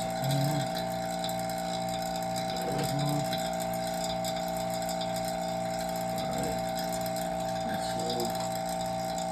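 Vacuum pump running steadily, pulling down a vacuum on a sealed furnace chamber: a constant hum with a regular low pulse a few times a second.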